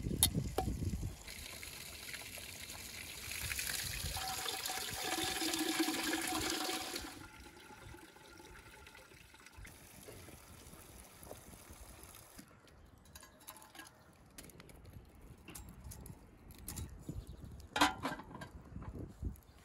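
Water poured into a vessel, a steady rush with a filling tone for about five seconds. Near the end comes a single metallic clank as a chimney pipe is set onto a samovar.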